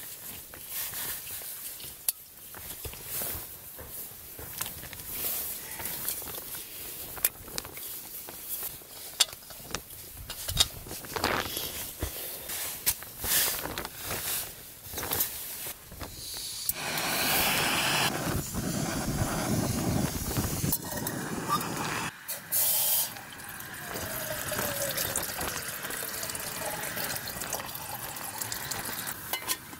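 Clicks and rustles of a small gas camping stove and cook pot being handled and set up on its canister. From about halfway through, water is poured from a bottle into the small metal pot, a steady splashing run with a brief break.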